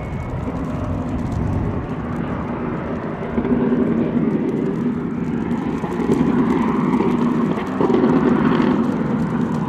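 Apollo Intensa Emozione hypercar's V12 engine under acceleration, growing louder in sudden steps about a third of the way in, about two-thirds in and near the end.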